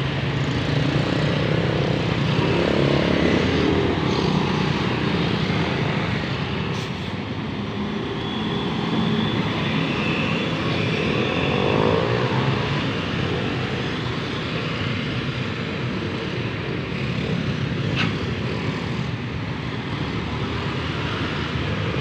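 Steady passing traffic of motor scooters and cars, their engines and tyres going by close, with scooter engines rising and falling in pitch as they pass.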